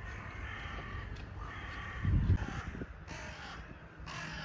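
Crows cawing repeatedly, harsh calls one after another. A short low thump about two seconds in.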